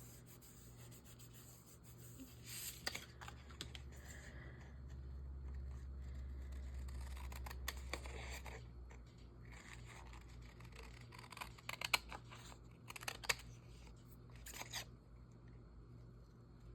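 Scissors cutting paper and paper being handled, in short scattered strokes with a few sharper clicks. A low hum rises for a few seconds about four seconds in and fades again.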